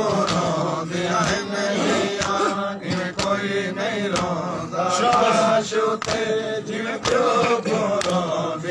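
Men chanting a noha lament in unison, the voices rising and falling through the refrain, with a steady beat of hand slaps on chests (matam) about once or twice a second.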